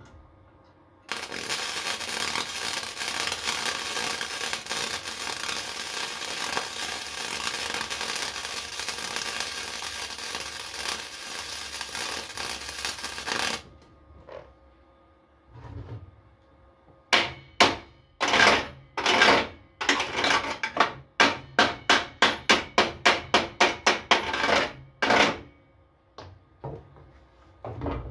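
Flux-core wire welder running a bead for about twelve seconds, a steady crackling hiss that cuts off suddenly. A few seconds later comes a run of about twenty quick, sharp strokes, about three a second at their fastest, as slag is cleaned off the fresh flux-core weld.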